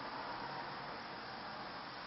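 Steady hiss of background noise, even throughout, with no distinct calls or knocks standing out.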